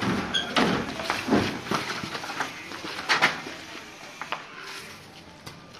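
Water buffalo's hooves knocking and thudding on a truck's wooden floorboards as it steps down off the truck, a string of heavy knocks that is loudest in the first three seconds and thins out after.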